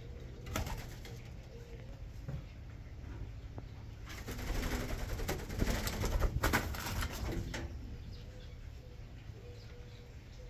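Spotted dove and ringneck dove: low cooing, with a flurry of wing flapping and scuffling from about four to seven and a half seconds in. A single sharp knock about half a second in.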